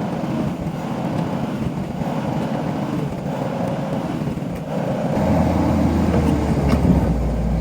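Skid steer engine running steadily; about five seconds in it grows louder with a deeper rumble as the machine works harder.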